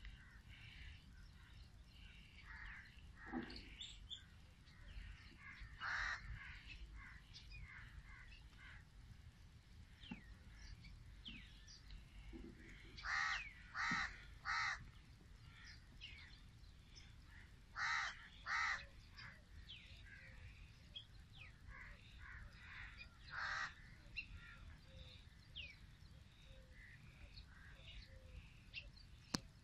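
Crows cawing, faint, in short runs: three caws about 13 seconds in, two more about 18 seconds in, and scattered single caws. Faint small-bird chirps sound between them.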